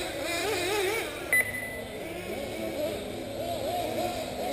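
Several 1/8-scale nitro RC buggies' small two-stroke glow engines racing, their pitch rising and falling over and over as the cars accelerate and brake around the track. A short high beep sounds about a second and a half in.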